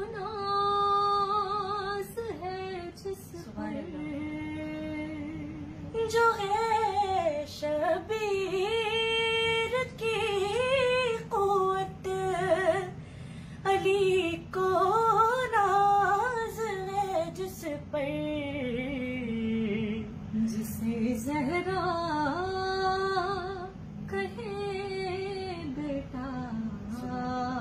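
Women singing an unaccompanied Urdu devotional song in praise of Abbas, taking turns on the lead. Long held notes and winding melismatic runs with no instruments.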